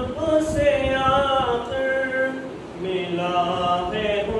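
Male voice singing an Urdu naat, a devotional song in praise of the Prophet, in long held notes that bend in pitch, with a short breath-like dip a little past halfway.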